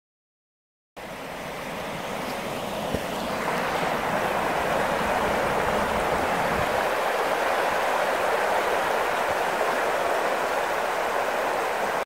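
Steady rush of flowing river water. It comes in about a second in and grows a little louder over the next few seconds.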